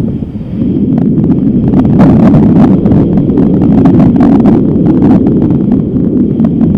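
Strong wind buffeting the microphone, a loud low rumble that swells about half a second in, with frequent crackles over it.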